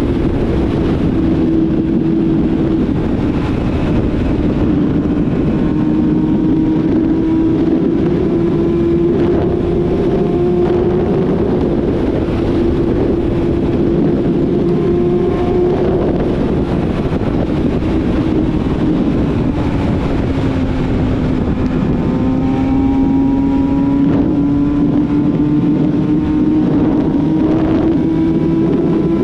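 Yamaha YZF-R6 inline-four sport bike with a full-system aftermarket exhaust, under way at a steady engine note that sags in pitch about two-thirds of the way through and then climbs again, with wind rushing past the camera's microphone.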